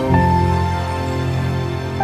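Slow, soft background music with held notes over a sustained bass, a new chord coming in just after the start.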